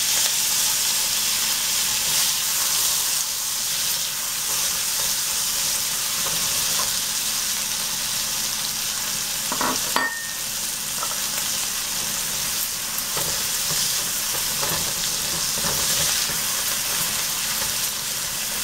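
Chopped tomatoes and cilantro sizzling steadily in hot oil with garlic and cumin seeds in a nonstick wok, stirred with a spatula. There are a couple of short knocks about halfway through.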